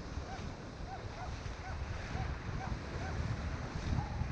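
Wind buffeting the microphone over surf washing through the shallows, with a faint run of short, arching chirps repeating two or three times a second.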